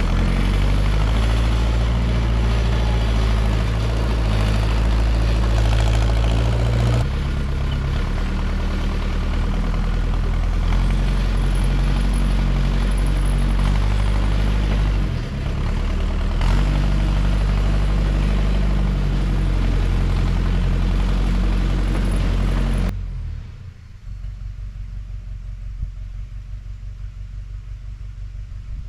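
Backhoe's engine running steadily and loud, in several stretches spliced together. About 23 seconds in it drops to a much quieter, more distant run.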